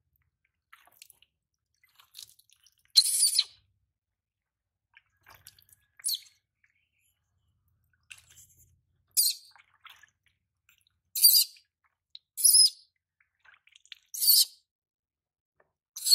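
Baby macaque giving short, high-pitched squeals, about seven of them a second or two apart, as it is bathed against its will.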